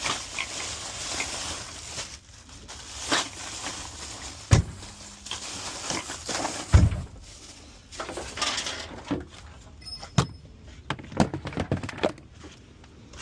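Tools and equipment being handled and shifted around: rustling, clinks and knocks, with two heavier thumps about four and a half and seven seconds in.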